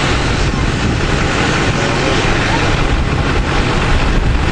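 Steady, loud rushing noise with a low rumble, as of a vehicle cabin on the move.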